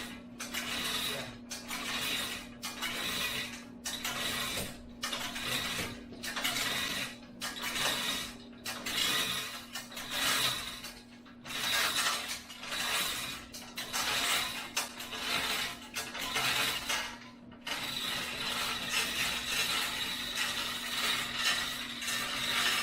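Repeated mechanical ratcheting strokes, about one a second, giving way some eighteen seconds in to a continuous scraping noise, over a steady low hum.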